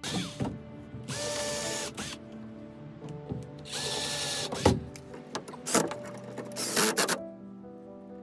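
Cordless drill driving screws into wood in three short runs, each with a steady motor whine, with clicks and knocks of handling between them.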